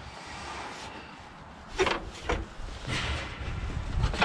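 A couple of short clunks from the levers and controls of a small riding mower being worked by hand, followed by low rumbling and light knocks near the end.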